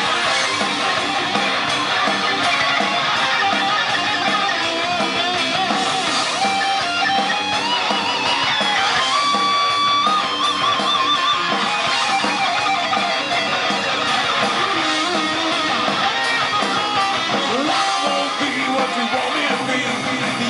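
Rock band playing live, with electric guitars to the fore: a lead guitar plays a melodic line, holding some notes with vibrato about halfway through, over the rest of the band.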